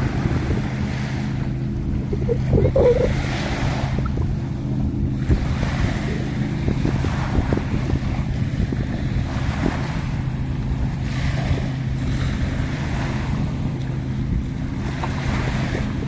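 Small waves washing onto a sandy beach, the hiss swelling every few seconds, over a steady low hum, with wind buffeting the microphone.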